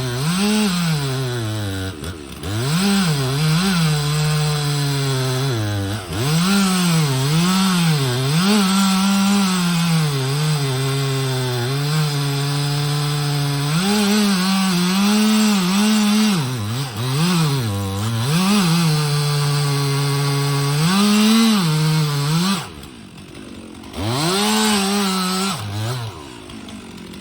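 Stihl chainsaw cutting through a tree trunk, its engine pitch rising and sagging over and over as it revs and bogs under load in the wood. Near the end it drops to idle, revs up briefly once more, then falls back to idle.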